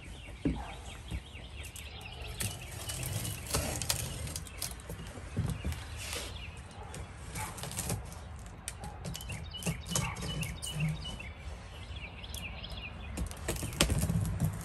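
Knife slicing through the clear plastic wrap on a cardboard box, with the plastic crackling and rustling as it is cut and pulled away. Birds chirp now and then.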